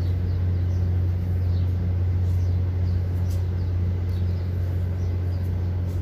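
A large engine idling steadily, a deep even drone with no change in speed.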